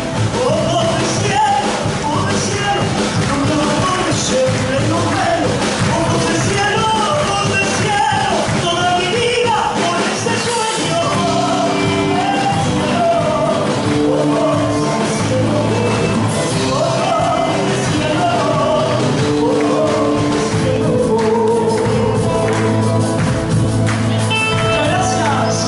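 Music with singing: a folk song with a sung voice over instrumental accompaniment and a steady beat.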